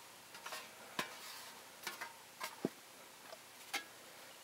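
Faint, scattered light clicks and taps, about half a dozen, as the cut-off painted sheet-steel lid of an ammunition tin is handled and turned over.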